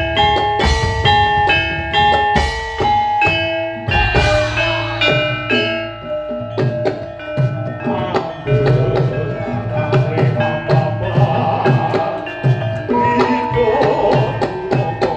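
Javanese kuda lumping music: gamelan-style struck metallophones playing a running melody of ringing notes over steady drumming.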